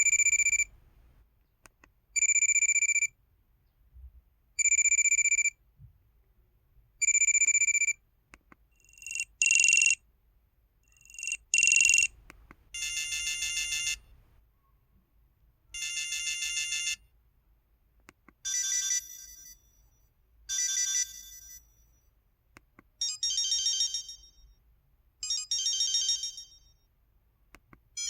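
LG-LB2900 mobile phone's built-in simple ringtones, played one after another. First comes a short, sharp electronic beep repeated four times about every two and a half seconds. Then two tones swell up, and then come pairs of longer, buzzy electronic rings.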